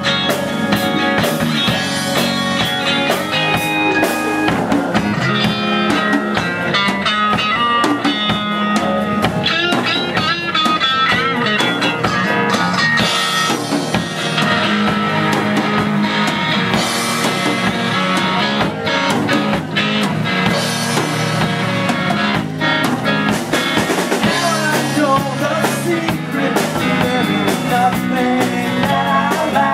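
Live rock band playing: electric and acoustic guitars over a drum kit.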